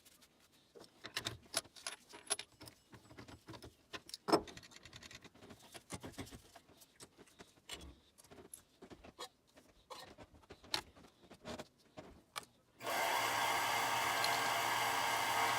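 Irregular clinks and taps of metal tools and parts being handled on a workbench, the loudest about four seconds in; near the end a steady whirring motor noise starts suddenly and keeps running.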